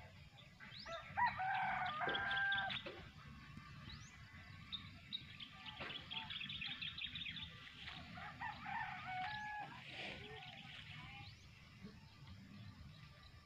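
A rooster crowing twice, the louder crow about a second in and a second one around eight seconds later, with small birds chirping in between.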